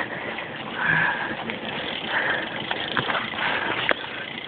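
Mountain bike ridden over a bumpy dirt trail: a steady rushing noise from tyres and moving air, broken by a few sharp knocks and rattles from the bike.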